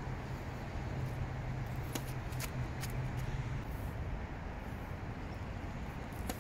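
Steady road traffic noise, with a vehicle's low hum for the first few seconds. A few sharp taps about two seconds in, and another near the end, from a tennis ball bounced on the hard court.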